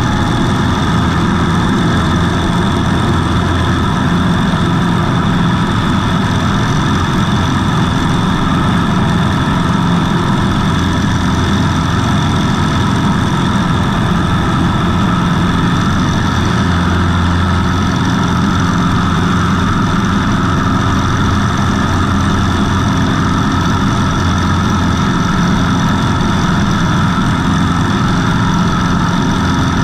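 Savage Outback light aircraft's engine and propeller running steadily at takeoff power as the plane lifts off and climbs out.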